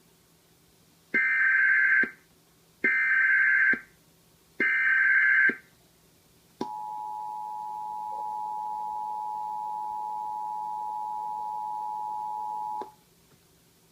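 Emergency Alert System header: three short bursts of SAME digital data tones, each just under a second, followed by the EAS two-tone attention signal held steady for about six seconds before it cuts off abruptly.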